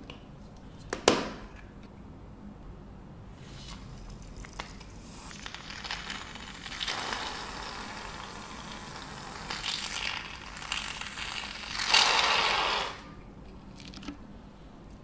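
Gillette shaving gel aerosol can spraying foam: a sharp click about a second in, then a crackling hiss of foam coming out in spurts, loudest just before it stops near the end.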